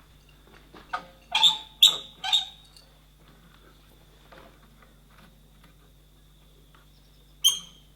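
A few sharp metallic clinks and knocks with a short ring: three or four in quick succession from about a second in, and one more near the end, over a steady low hum.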